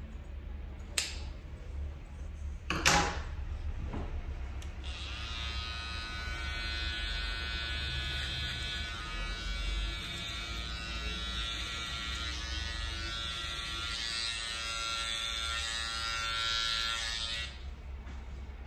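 A few sharp clicks, then from about five seconds in a small electric detailing clipper buzzes steadily as it trims hair over a comb at the sideburn, switching off shortly before the end.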